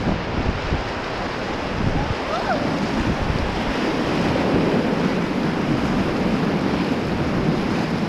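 Ganges whitewater rushing and churning around an inflatable rubber raft, a steady wash of river noise, with wind buffeting the microphone.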